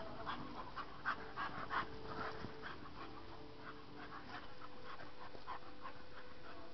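Dogs at rough play panting hard in quick, short breaths, about three a second, easing off after about four seconds.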